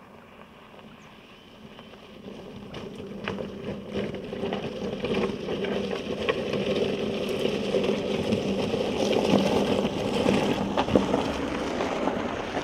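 Audi Q7 SUV driving over a dirt and gravel track, its engine running under the crackle of stones under the tyres. The sound grows louder from about two seconds in as the car approaches and passes close by.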